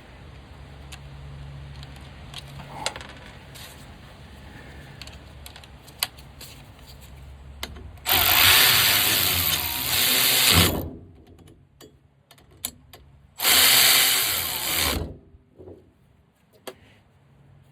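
Power tool running bolts in: two runs of about two and a half and one and a half seconds, the first slowing as it stops, driving the yoke strap bolts that clamp a pinion holding tool to the differential's pinion yoke. Light clicks and knocks of parts being handled come before them.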